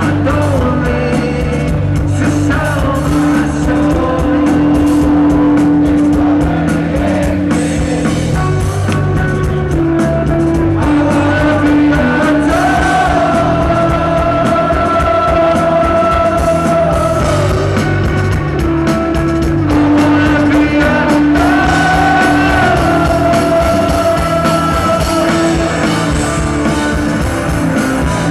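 Live rock band playing, with electric guitar, while a male lead singer sings into a microphone over it.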